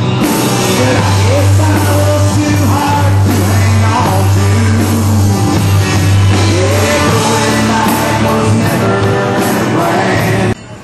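Country-rock song with a male lead vocal over electric guitars, bass guitar and a drum kit; it cuts off suddenly near the end.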